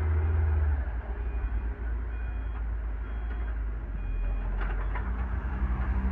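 Excavator's diesel engine running, easing off about a second in, while its travel alarm beeps three times about a second apart. A few sharp knocks follow near the end.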